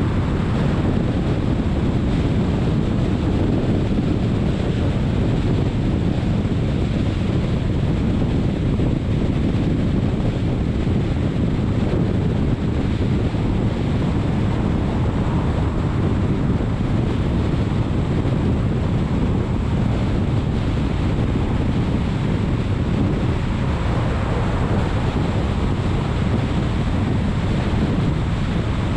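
Steady rush of wind and road noise from a car cruising at freeway speed, with a low rumble of the tyres on the road surface.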